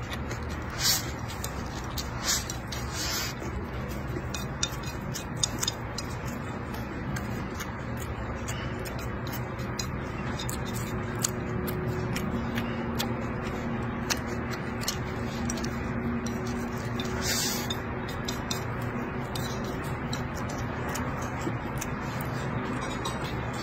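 Close-up eating sounds: chewing and lip-smacking on stir-fried meat and rice, with many light clicks of wooden chopsticks against the plate. There are a few short, louder noises about a second in, around three seconds in, and about two-thirds of the way through, all over a low, steady background noise.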